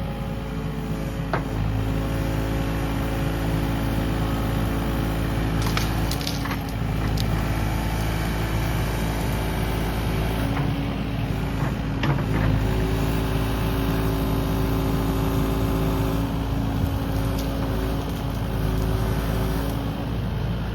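Kubota KX080 mini-excavator's diesel engine running steadily, its pitch shifting as the hydraulics take load while it tears out brush and vines. A few sharp cracks of snapping wood come about six and seven seconds in and again around twelve seconds.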